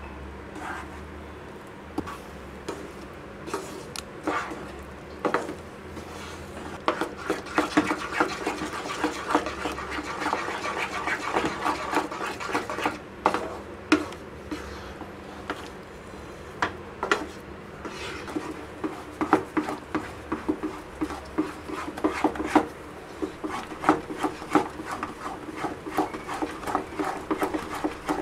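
A utensil scraping and knocking against a kadai as cashew paste and powdered sugar are stirred continuously over low heat, cooking down into kaju katli dough. There are irregular clinks and scrapes throughout, busier from about a quarter of the way in.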